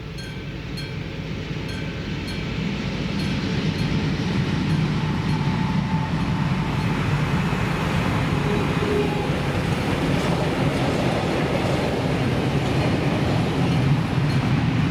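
Freight train approaching and running over a level crossing, growing louder over the first few seconds into a steady heavy rumble. At the start the crossing's warning bell is heard ringing in regular strikes, a couple a second, before the train drowns it out.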